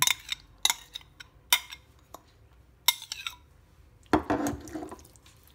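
A spoon clinking against a stainless-steel mixing bowl a few separate times as baby octopus is stirred slowly into a thick marinade, with a longer, louder stirring sound about four seconds in.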